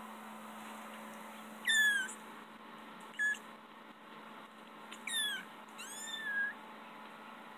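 Two-week-old kittens mewing: four short, high, thin cries that slide down in pitch, the first the loudest, with the last one rising and then falling. A faint steady hum runs underneath.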